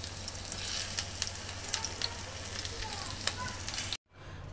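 Arbi-leaf pakode (sliced colocasia leaf rolls in gram-flour batter) shallow-frying in hot oil in a pan, being fried a second time: a steady sizzle with scattered sharp crackles. It cuts off suddenly near the end.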